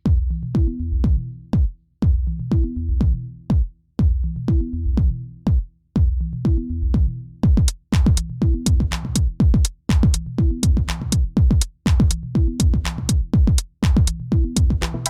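Background electronic music with a drum-machine beat and a repeating bass line; the drum hits come faster about halfway through.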